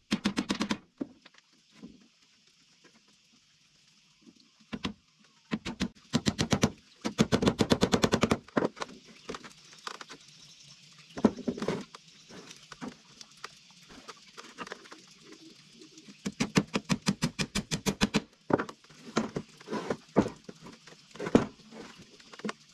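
Runs of rapid, sharp knocks, about ten a second for one to two seconds at a time, with scattered single knocks between them, typical of hand work on wood. A steady high hiss sits underneath.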